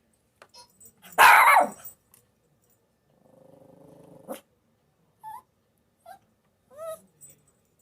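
A dog barks once, loudly, about a second in, then growls low for about a second, ending sharply. Near the end come three short, high whines.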